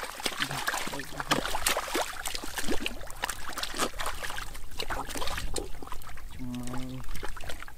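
Wet mud and muddy water squelching and splashing in many short, irregular bursts as hands dig and grope through a waterlogged mud channel.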